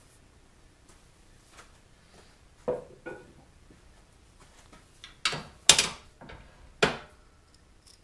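Five sharp clunks and knocks from handling the wood lathe's tailstock and live center as it is worked free of the spinning top's point. The first two come in quick succession, the first with a short ring; three louder ones follow about two seconds later.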